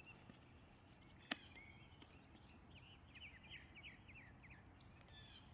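Near silence with faint bird chirping: a run of short, high, falling notes through the middle. A single soft click comes just over a second in.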